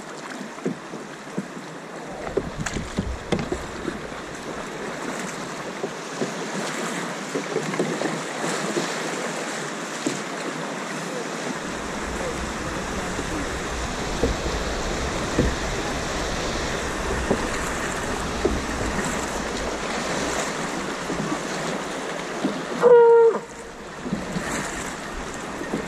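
Fast stream water rushing around a canoe, with scattered paddle splashes and knocks. About 23 seconds in, a brief loud pitched call cuts through.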